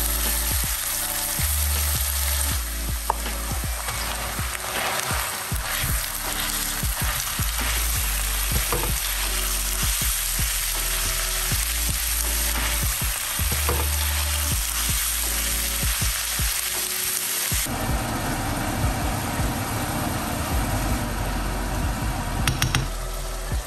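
Chopped onion, grated carrot and minced meat sizzling in hot oil in a nonstick frying pan, with a plastic spatula scraping and stirring against the pan in frequent short clicks. The sizzle changes character about three quarters of the way through.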